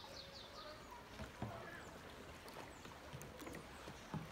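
Quiet water lapping and paddle dips around a kayak, with a few soft low knocks against the hull. A short high trill of quick falling notes sounds at the start.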